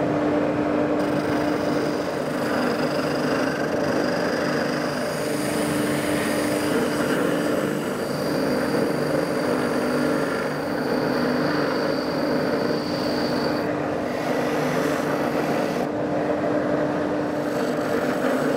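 Axminster Trade AT152OVS oscillating bobbin sander running steadily. A piece of thick oak is pressed by hand against its 100-grit sanding bobbin, and a shifting hiss of abrasive on wood rides over the motor's constant hum. The machine takes the 40 mm oak without struggling.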